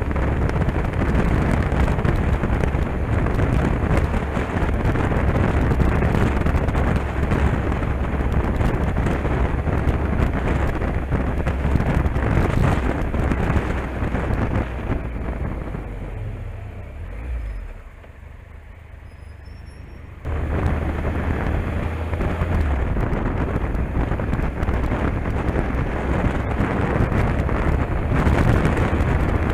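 Wind rushing over the camera on a moving motorcycle, over the low drone of its engine. About two-thirds through the wind falls away for a few seconds, leaving a quieter engine sound, then comes back abruptly.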